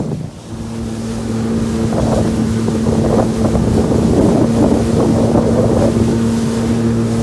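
Sea-Doo personal watercraft engine running at a steady pitch, with water splashing around the hull. The engine tone comes in about half a second in, after a burst of wind rush cuts off.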